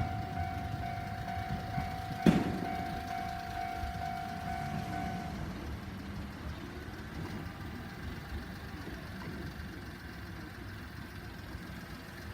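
Railway level-crossing alarm sounding a steady ringing tone that cuts off about five seconds in, the crossing clearing after the train has gone through. A single sharp clunk comes about two seconds in, over a low rumble that slowly fades.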